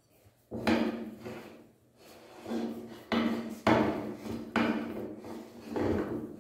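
Metal-on-metal grating and clunking as the threaded ring nut on an electric meat grinder's aluminium head is twisted by hand. There are about six sharp bursts, each fading quickly.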